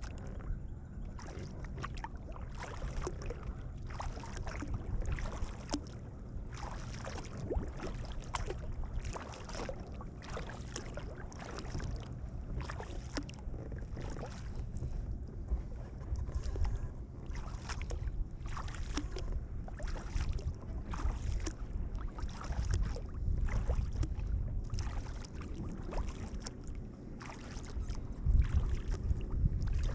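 Kayak paddling: a double-bladed paddle dipping into the water on alternate sides, making a steady run of splashes and drips. A low rumble of wind on the microphone runs underneath and grows heavier near the end.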